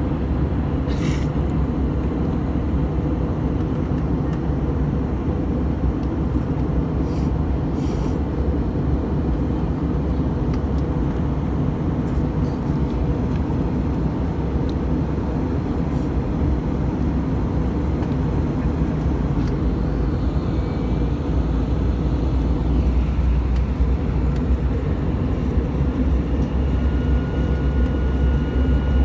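Steady in-flight cabin noise of a passenger airplane: a constant low rumble of engines and rushing air.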